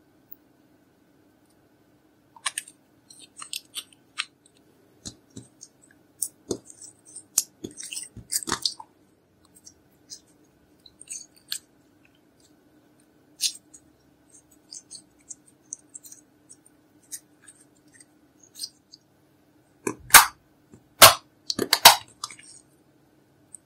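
Slime being squished and poked by hand, giving scattered sticky crackles and small pops, with three louder pops close together near the end.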